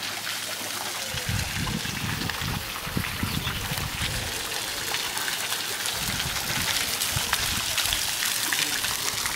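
Garden fountain's jets splashing steadily into its stone basin. Low, gusty rumbles come in from about a second in.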